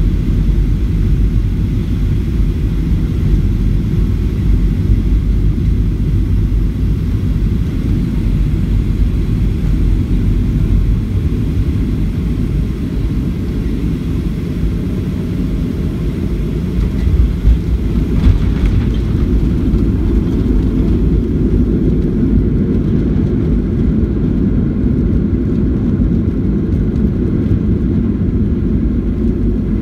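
Cabin noise of a Boeing 737 landing: a steady low rumble of engines and airflow, with a couple of brief bumps a little over halfway through as the wheels touch down. After touchdown the rumble grows heavier as the jet rolls out on the runway with its spoilers up.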